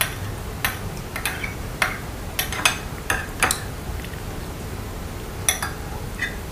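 Metal spoon scraping and clinking against a glass bowl while scooping out the last spoonfuls of porridge. The clinks are sharp and irregular, bunched in the first few seconds, with a couple more near the end.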